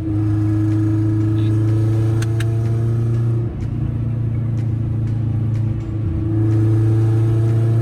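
1996 Acura Integra's four-cylinder engine droning loudly through a straight-pipe exhaust while driving, heard from inside the car at fairly steady revs. The drone dips briefly twice, about three and a half and six seconds in, and is a little louder after the second dip.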